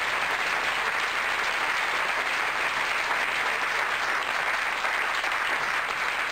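Theatre audience applauding steadily, a dense wash of clapping hands.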